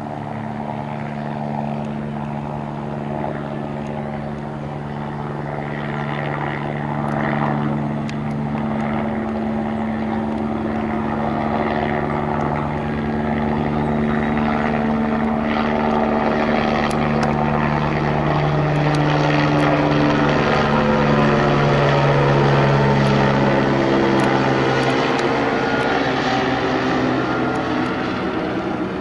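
Eurocopter AS350 Esquilo helicopter flying overhead: the steady hum and whir of its turbine and rotors. It grows louder as the helicopter comes closer, is loudest about three-quarters of the way through, and drops slightly toward the end.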